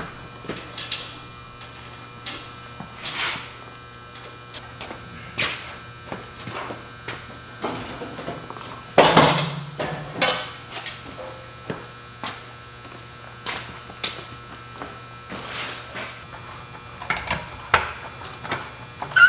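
Scattered metal knocks and clanks, with one louder clunk and scrape about nine seconds in, as a log splitter is jacked up and set on jack stands, over a steady electrical hum.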